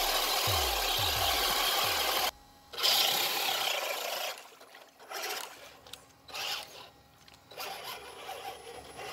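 Rap song with deep falling bass hits that cuts off abruptly about two seconds in. Then an RC scale truck's motor and gears whir unevenly, rising and falling, as its wheels churn through mud and water.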